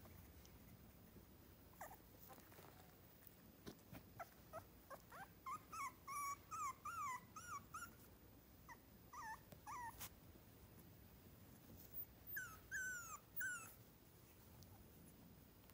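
Three-week-old miniature schnauzer puppies whimpering: a run of short, high, wavering whines from about four to ten seconds in, and a few more about twelve seconds in.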